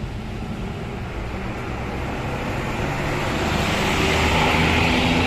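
Road traffic: a low engine rumble with road noise, growing louder about three seconds in as a vehicle comes closer.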